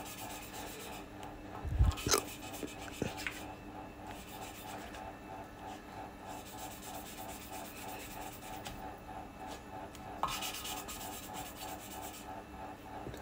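An exhaust valve being hand-lapped into its seat in a Toyota 3UZ V8 cylinder head, the lapping stick spun back and forth between the palms. The valve face grinds against the seat through fine cutting paste in a steady, repeating rasp of a few strokes a second. There is a dull knock about two seconds in.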